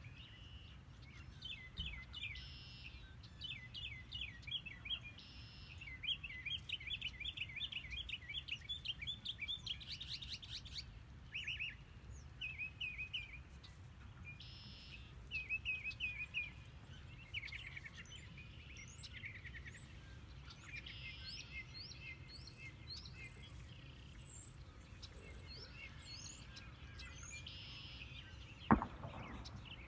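Songbirds singing and chirping: many short repeated calls and quick trills of rapid notes, over a low steady rumble. A single sharp knock near the end.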